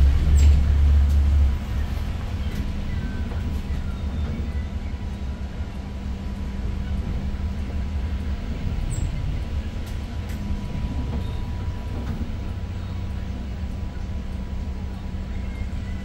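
Cabin sound of a Daewoo NEW BS090 city bus under way in slow traffic: its GL08P CNG engine's low rumble, loudest for the first second and a half, then easing to a steady drone.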